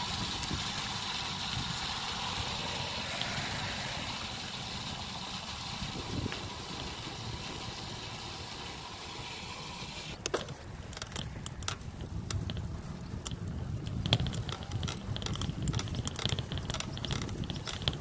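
Wind and rolling noise from a bicycle in motion, heard through the camera riding with it: a steady rushing hiss, then from about ten seconds in a rougher rumble with many small clicks and rattles.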